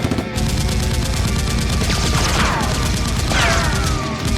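Rapid automatic gunfire sound effects, a fast unbroken stream of shots, with two falling whistle-like tones about two and three and a half seconds in.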